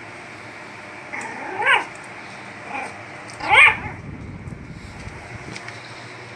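Small puppy giving two short, high yipping barks about two seconds apart, the second louder, in excited play.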